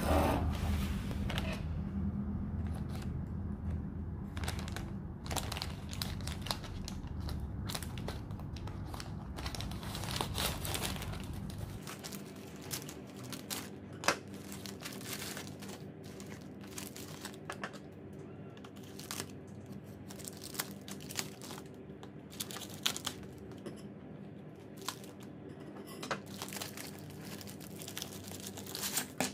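Plastic courier mailer and plastic wrapping crinkling and rustling as a parcel is opened and its contents pulled out by hand, in irregular crackles with some tearing.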